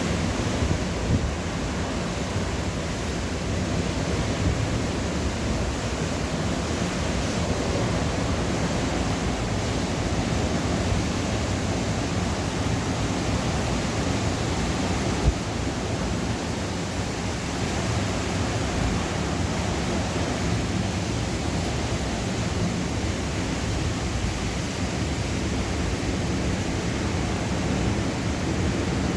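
Steady rush of strong storm wind and surf ahead of a hurricane, with the wind buffeting the microphone and a few brief louder bumps, the clearest about halfway through.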